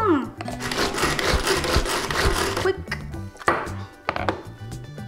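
Chopped eggplant paste being scraped out of the plastic bowl of a manual pull-string food chopper: a rough scraping for about two and a half seconds, then softer scrapes with a single knock partway through. Background music plays throughout.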